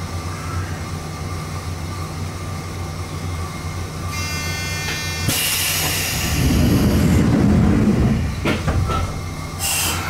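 Toyama Chiho Railway 14760-series electric train standing at the platform with a steady low hum. About four seconds in a short buzzer sounds. It is followed by a burst of compressed-air hiss, a low rumble and two knocks as the doors close before departure, and a short air hiss near the end.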